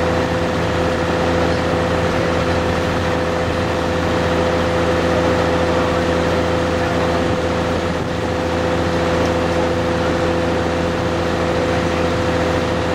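Tracked excavator's diesel engine idling steadily, a constant hum with a held tone on top.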